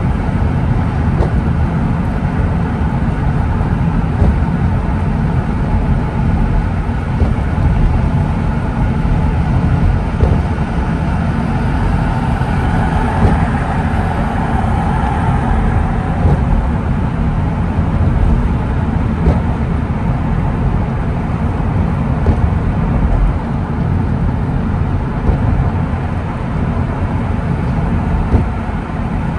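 Steady low road and tyre noise of a car driving on a wet road in the rain, swelling briefly about halfway through.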